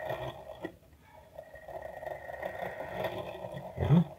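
Brass clock movement's gear train and escape wheel spinning freely with the pallets removed, giving a steady whirring buzz as the mainspring runs down. It fades out briefly about a second in, then picks up again, and a short louder noise comes near the end.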